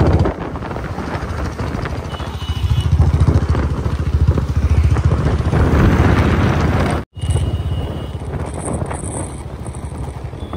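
Road noise from riding along a highway: wind rushing over the microphone over the steady low rumble of a vehicle engine. The sound cuts out for an instant about seven seconds in.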